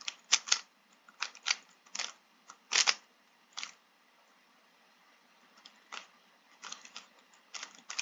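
3x3 puzzle cube being turned quickly by hand during a solve: layers clicking and clacking in irregular bursts, with a pause of about a second and a half near the middle.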